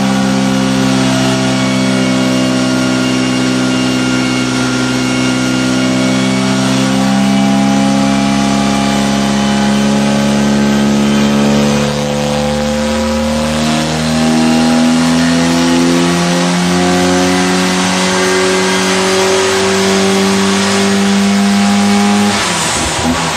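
Rally Mini's Weber-carburetted A-series four-cylinder engine pulling under load on a rolling road during a power run, its pitch climbing slowly and steadily through the rev range for about twenty seconds, then cutting off sharply near the end as the run finishes.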